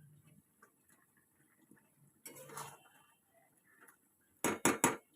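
Metal spoon scraping and knocking against a cooking pan, about four quick strokes close together near the end. Before that, only faint clicks and a short rustle about two seconds in.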